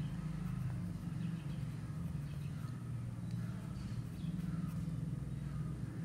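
Steady low rumble of background noise, with faint, scattered bird chirps over it.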